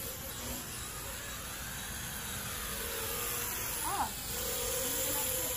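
Small toy quadcopter drone buzzing as it flies overhead at a distance, its pitch wavering. A short chirp comes about four seconds in.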